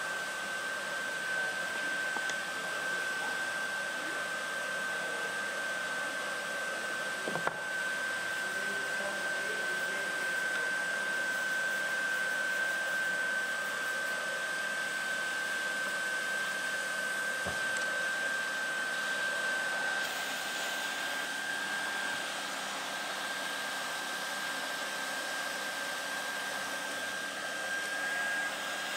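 Hot-air welding blower running steadily: an even rush of air with a constant high whine. A single light knock about seven and a half seconds in.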